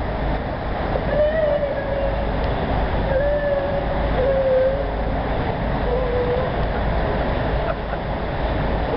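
Steady rushing noise of a raft running down the AquaDuck water coaster's flume, water and wind together. Several brief held tones rise over it now and then.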